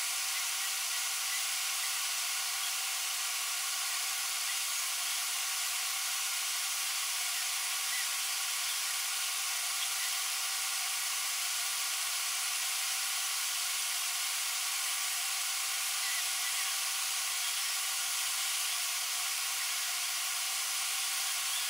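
A steady, even hiss with no separate strokes or changes.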